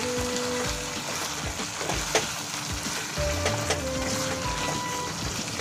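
Chicken pieces in spice masala and sour yogurt sizzling in hot oil in a kadai, stirred with a spatula that clicks and scrapes against the pan. This is the frying-down (kasha) stage, where the masala and yogurt are cooked into the meat.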